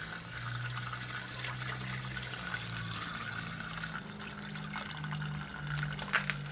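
Freshly pressed red grape juice pouring from a bowl through a plastic funnel into a large glass demijohn, a steady rushing and gurgling of liquid as the bottle is filled for fermentation. A low steady tone runs underneath and steps up slightly in pitch about four seconds in.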